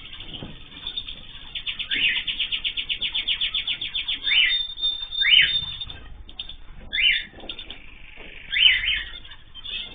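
Small cage birds calling: a fast trill of about ten notes a second lasting over two seconds, then several short, falling chirps spaced about a second apart.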